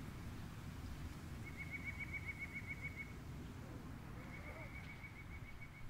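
A bird gives two rapid trills of evenly repeated notes, at about seven notes a second: one about a second and a half in, the other near the end. Under them is a low, steady rumble of outdoor background noise.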